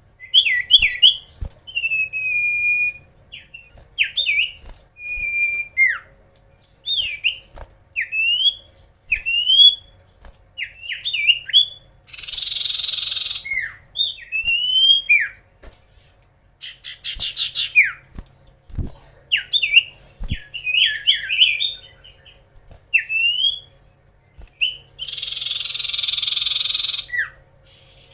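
Common iora (cipoh) singing: a busy string of short clear whistled notes and quick upward-sweeping slurs, broken twice by a longer harsh rasping note of about a second and a half.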